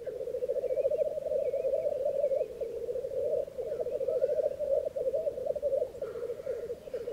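Male black grouse at a lek, a chorus of their bubbling, cooing display song (rookooing). It is a continuous, rapidly pulsing low warble with several birds overlapping.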